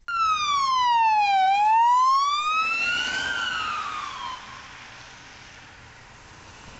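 A siren wailing. Its pitch falls, rises and falls again over about four seconds, then fades into a steady faint hiss.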